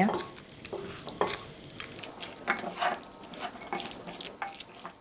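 A metal spoon stirring and scraping in a glass bowl, mixing chicken pieces into a thick marinade with cornflour and rice flour for a crisp coating. Irregular short scrapes and clinks come every half second or so.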